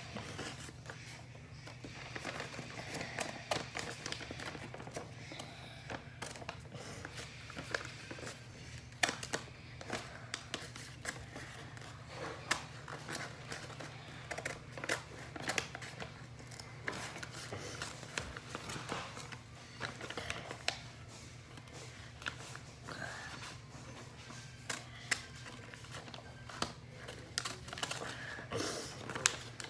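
Scissors snipping through a sheet of paper, a long run of irregular sharp snips with paper rustling as a drawing is cut out.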